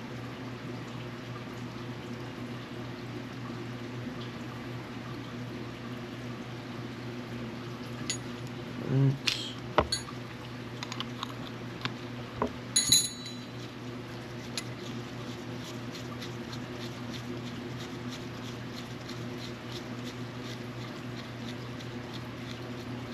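Small metal parts and tools of a spinning reel being handled on a bench: a handful of sharp clicks and light metallic clinks, some briefly ringing, about eight to thirteen seconds in, with a short squeak among the first of them. A steady low hum runs underneath throughout.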